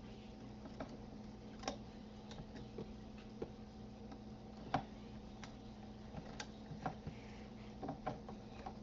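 Faint, irregular clicks and taps of fingers and rubber bands on the pegs of a plastic band loom as a chain is made, over a steady low hum.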